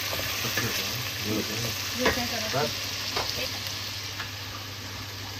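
Onion, ginger-garlic-chilli paste and tomato sizzling steadily in hot oil in a stainless steel pot, with a wooden spoon stirring and scraping through the mixture.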